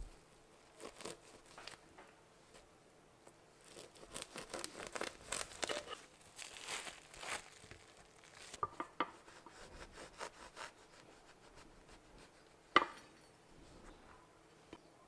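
Serrated knife sawing through a plastic-wrapped baguette's crust in quick back-and-forth strokes, mixed with the crinkle of plastic wrap being handled. A single sharp knock comes about two-thirds of the way through.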